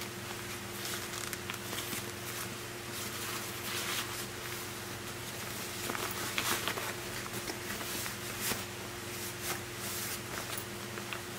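Packaging and a fabric backpack being handled: scattered rustles and light clicks, busiest around the middle, over a steady low electrical hum.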